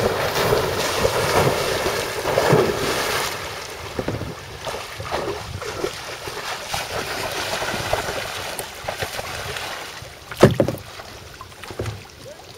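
Water splashing loudly for the first three seconds as a cow runs through shallow river water, then softer water sounds around the kayak with wind on the microphone. A sharp knock comes about ten seconds in.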